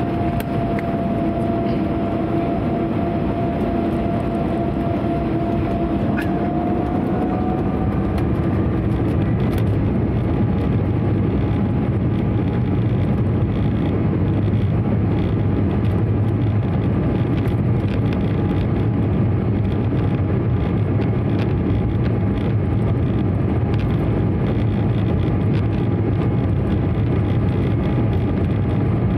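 Cabin sound of an Embraer 195's GE CF34-10E turbofan engines running at low taxi thrust as the jet rolls onto the runway: a steady rumble and rush with a thin engine whine. The whine rises slightly in pitch over the first several seconds, and the rumble grows a little after that.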